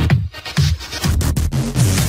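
Electronic dance music with a steady bass-heavy beat.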